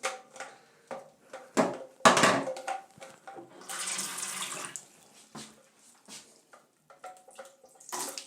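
Water running through a set of joined pipes, a steady rush for a second or so about three and a half seconds in, among knocks and clatters of the pipes being handled; the joint is not fully secure.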